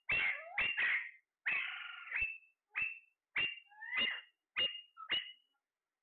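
Alexandrine parakeets calling: a rapid run of about a dozen short squawks, with one longer, drawn-out call about one and a half seconds in. The calls stop a little after five seconds.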